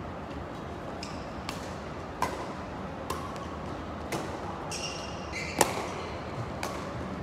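Badminton rackets striking a shuttlecock in a doubles rally: about six sharp cracks, roughly one a second, the loudest just past halfway. A brief high squeak comes just before that loudest hit.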